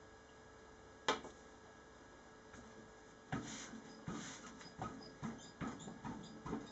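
Wet fabric being pressed and wiped over plastic sheeting to mop up dye overspray: faint scuffing and rustling in a run of short strokes from about halfway through, after a single sharp click about a second in.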